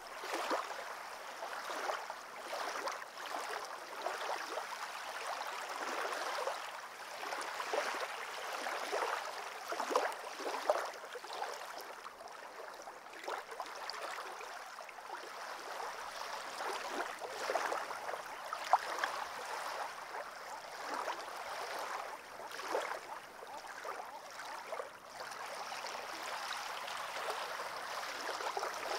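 Lake water lapping and gurgling against a pebble shore: small irregular splashes that come and go with no steady rhythm.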